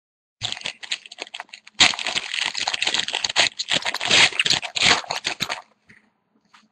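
Foil trading-card pack wrapper crinkling and tearing as a pack is opened and handled, a dense crackle that stops about a second before the end.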